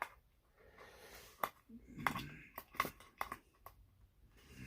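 Light, scattered clicks and taps of wooden jig pieces and small metal hardware being handled and set into place, most of them in the middle of the stretch.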